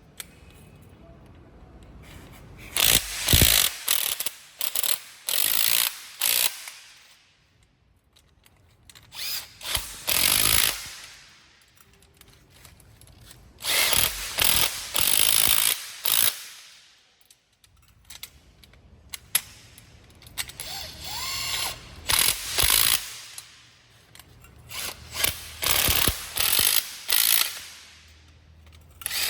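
Makita DTW300 18V cordless impact wrench running in repeated short trigger bursts, each a fraction of a second to a few seconds long, in about five groups with quieter pauses between.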